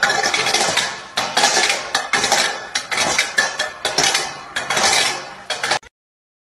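A metal dog bowl clattering and scraping across brick paving as a small dog shoves it about: a fast, irregular run of clanks that stops abruptly near the end.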